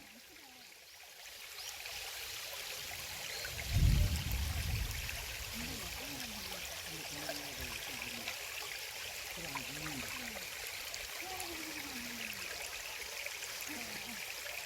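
Mountain valley stream, full after heavy rain, running and babbling steadily, swelling in over the first two seconds. A single low thump about four seconds in is the loudest moment.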